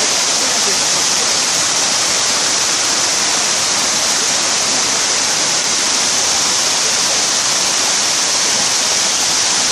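A steady, even rushing hiss, strong in the upper range and unchanging throughout, like water running or a constant noise on the recording.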